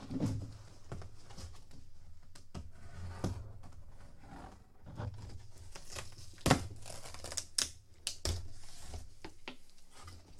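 Cardboard shipping box being opened by hand: tape tearing, cardboard flaps scraping and packing paper crinkling, with several sharp snaps, the loudest about six and a half seconds in.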